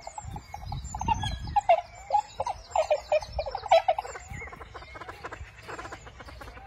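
Inca terns calling: many short calls in quick succession, overlapping and dense for the first few seconds, then thinning out. A low rumble comes and goes underneath.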